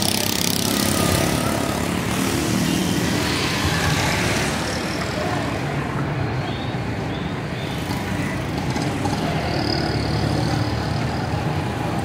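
Busy street traffic: motorcycle, auto-rickshaw and car engines running and passing in a steady din.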